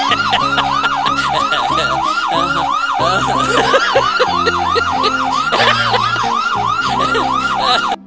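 Fake police siren played as a prank, in rapid yelp mode: a loud rising-and-falling whoop about three and a half times a second. It cuts off abruptly at the end.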